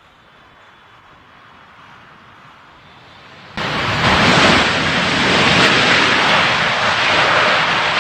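Jet airliner landing, its engines roaring loudly, mixed with wind noise. Faint background until a little past halfway, when the loud roar starts abruptly.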